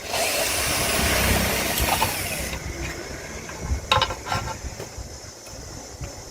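Battery charger being taken apart: a couple of seconds of loud mechanical rasping, then a few sharp clicks about four seconds in.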